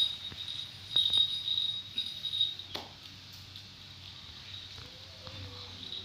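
High-pitched insect trilling that comes in stretches, strongest in the first half and fading later, with a sharp click about halfway through.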